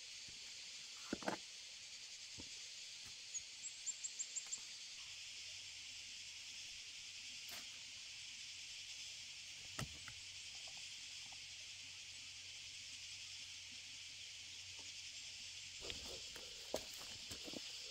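Steady high-pitched insect chorus, with a quick run of about six high chirps between three and four seconds in. A few scattered knocks from a hoe and hands working clumpy soil, most of them near the end.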